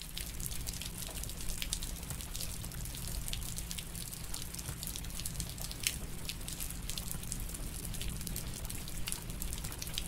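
Rain falling, with many irregular drop ticks over a steady hiss and a low rumble underneath.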